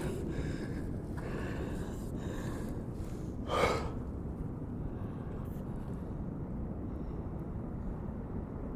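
Steady low background rumble, with one short breath, a gasp-like sharp intake or exhale, about three and a half seconds in.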